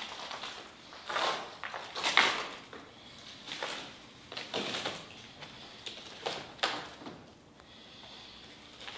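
Footsteps scuffing and crunching on grit and rubble over a bare concrete floor, irregular, about one step a second, in a small echoing room.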